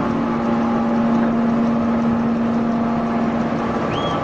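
Hydraulic scrap metal baler running, a steady machine hum with no change in pitch or level.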